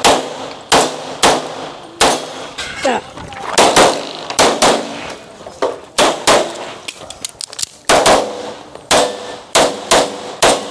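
A string of gunshots, about eighteen in some ten seconds at uneven spacing, some in quick pairs, each with a short ringing echo: rapid practical-shooting fire on an IPSC stage.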